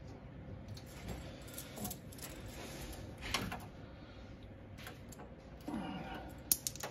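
Small clicks and rattles of a round multi-pin cable connector being pushed into a laser water chiller's socket and its nut being turned, with one sharp click near the end.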